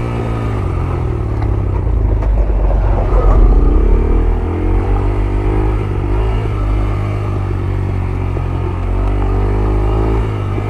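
Yamaha YBR 125G's single-cylinder engine running under way on a rough off-road track, with a louder, noisier surge about three seconds in.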